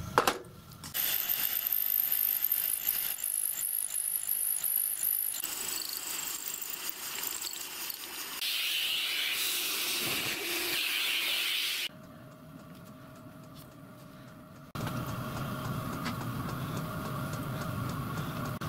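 Metalworking workshop sounds in several short takes: a sharp metallic knock, a high-pitched squeal on steel work, a hiss, and near the end a machine motor humming steadily.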